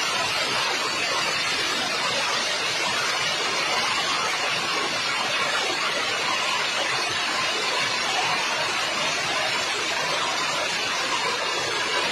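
Hailstorm: hail and heavy rain pelting down steadily as a dense, even hiss.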